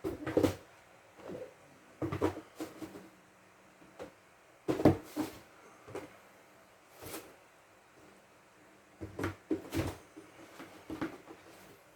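Boxed Funko Pop figures being handled and set down: a string of irregular knocks and scuffs of cardboard boxes, the loudest about five seconds in and again near ten seconds.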